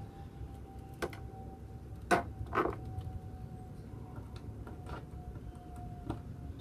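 A few sharp clicks and knocks of hatch parts being handled, the loudest about two seconds in and another shortly after, over a low rumble and a faint steady tone.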